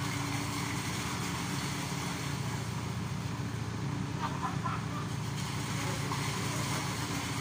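Diesel engine of a CarMix self-loading concrete mixer running steadily, turning the mixing drum. It holds a constant pitch with no revving.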